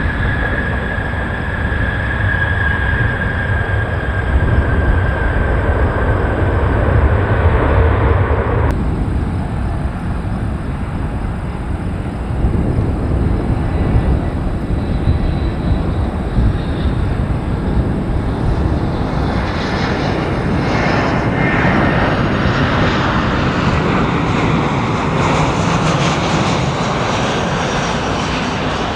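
Jet airliner engines: a strong low rumble with a whine that slowly falls in pitch, cut off abruptly about nine seconds in. Then a second jet's noise builds, growing and brightening from about eighteen seconds on.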